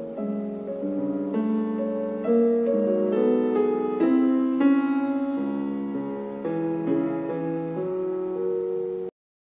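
Piano music, a melody over chords with notes changing every half second or so, cutting off abruptly near the end.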